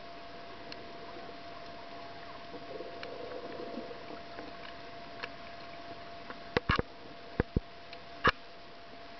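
Underwater ambience recorded through a camera housing: a steady hiss with a faint constant hum, a soft burbling in the first half, and a cluster of five sharp clicks or knocks in the second half, the last and loudest about eight seconds in.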